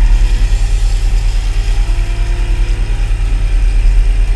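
Small fishing boat's engine running steadily at low speed, a loud, even low hum.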